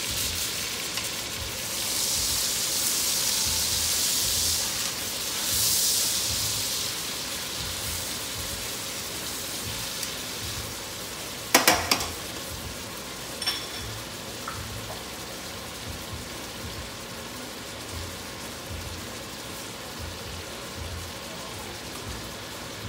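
Steaks sizzling in butter and olive oil in a stainless steel frying pan as they are turned. The sizzle is loudest for the first few seconds, then settles to a steadier, quieter hiss, with a few sharp metal clacks of tongs against the pan about halfway through.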